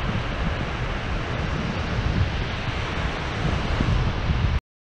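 Ocean surf washing up a sandy beach with wind buffeting the microphone, a steady rushing noise with gusty low rumble, cutting off suddenly near the end.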